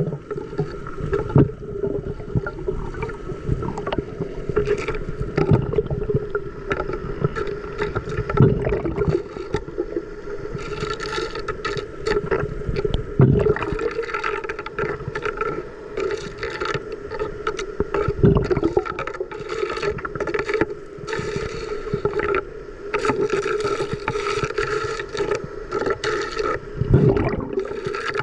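Muffled underwater churning and gurgling of water against the camera, over a steady hum, with irregular knocks and scrapes.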